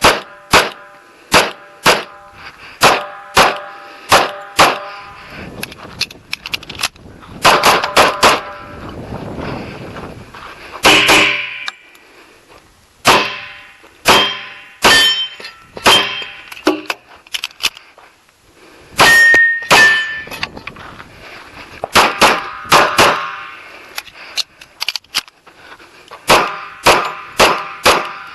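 Kimber 1911 pistol in .45 ACP fired in quick strings of shots, with pauses of a second or two between strings. Several shots are followed by a metallic ring.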